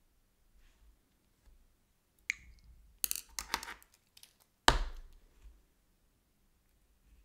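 Painting tools handled on a hard tabletop: a clink that rings briefly, a quick cluster of rattling taps, then one louder knock about five seconds in, with a few faint ticks between.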